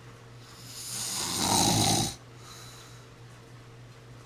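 A person snoring: one long snore that builds up and cuts off about two seconds in, followed by a faint steady hum.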